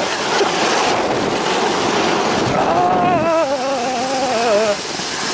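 Loud rushing noise of a snow tube sliding fast down a snow run, with wind buffeting the microphone. About two and a half seconds in, a person's voice lets out a long, wavering cry lasting about two seconds.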